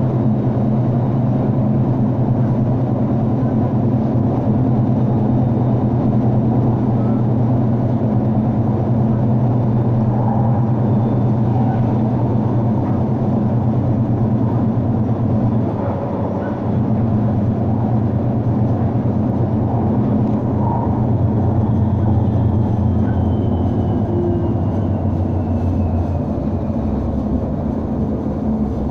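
Bombardier Incentro tram running, heard from inside the passenger saloon: a steady low hum and rumble. It dips briefly about halfway, and the hum shifts lower near the end.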